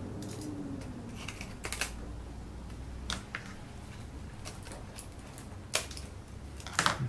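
Scissors trimming excess baking foil: a string of irregular light snips and crackles.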